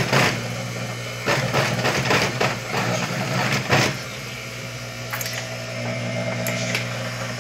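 Industrial lockstitch sewing machine stitching thin lining fabric in short runs, with a steady motor hum underneath. The stitching stops about four seconds in, leaving the motor humming and a few light clicks.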